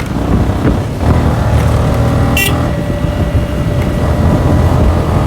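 Motorcycle engine running while riding along, getting louder about a second in. A short high beep sounds about two and a half seconds in.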